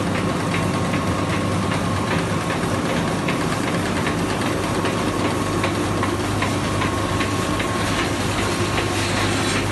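Focus F250 four-colour central-impression flexographic label press running: a steady mechanical hum with repeated light clicks from the turning rollers and drive, and a brief hiss near the end.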